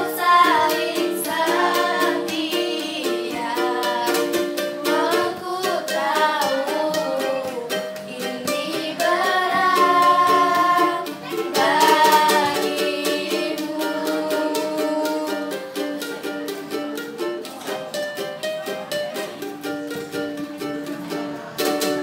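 Two girls singing a song together, accompanied by a strummed ukulele. About halfway through the voices drop out and the ukulele strumming carries on alone.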